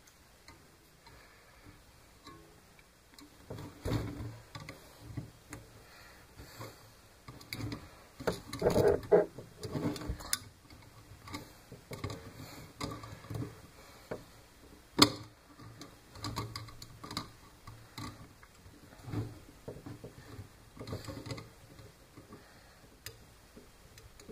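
Irregular light clicks, taps and knocks of small parts and tools being handled on a workbench, with a busier cluster about nine seconds in and one sharp click about fifteen seconds in.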